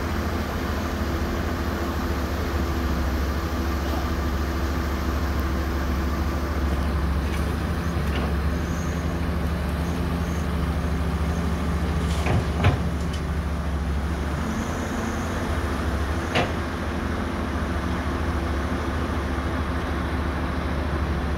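Cat 320D hydraulic excavator's diesel engine running steadily under load while it digs and loads earth into a dump truck, with a few short sharp knocks about halfway through and again a few seconds later.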